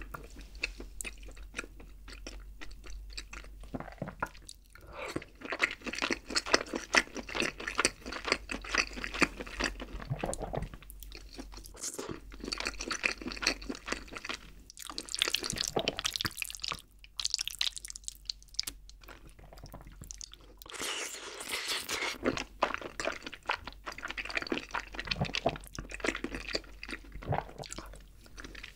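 Close-miked chewing of rose jjimdak, braised chicken in a creamy sauce: clicky mouth sounds in bursts of a few seconds, with short pauses between bites.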